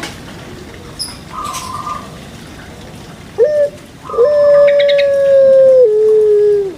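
Dove cooing: a short note, then one long held note that steps down in pitch near the end.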